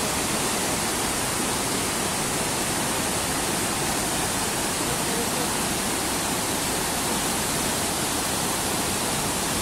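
Whitewater river rapids rushing in a steady, unbroken wash of noise.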